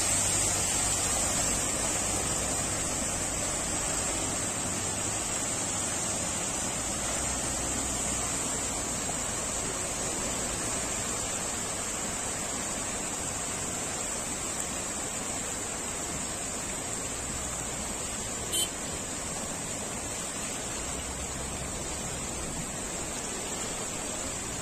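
Steady rushing noise of floodwater, with one short click about three-quarters of the way through.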